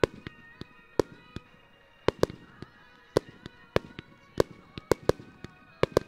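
Fireworks shells bursting in an irregular series of about a dozen sharp bangs, the loudest roughly a second apart. Beneath them, music with sustained notes plays along with the pyromusical display.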